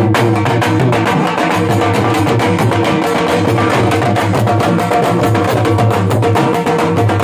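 Several dhol drums beaten together with sticks in a loud, fast, driving rhythm.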